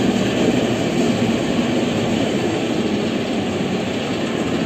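Metro train passing on the track: a steady rumble of wheels and motors, easing off a little towards the end. The train is an older one of the city's original rolling stock.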